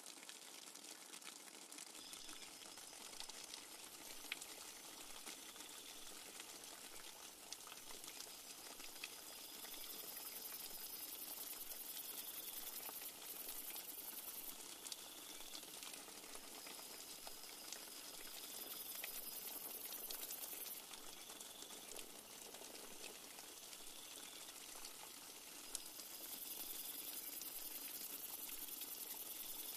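Soft, steady rain falling on foliage, with many small drops ticking. A high insect trill, like crickets or cicadas, comes in and stops in several bouts of a few seconds each.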